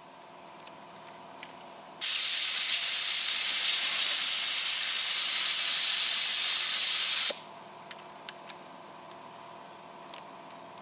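Paint spray gun hissing in one burst of about five seconds, spraying water through it to flush out the paint after it had been spraying poorly. Before and after the burst, only a faint steady hum and a few light clicks.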